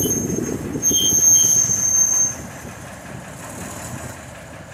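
Steel train wheels squealing high and thin against the rails over a low rolling rumble. After about two seconds the squeal stops and the sound drops to a quieter rumble.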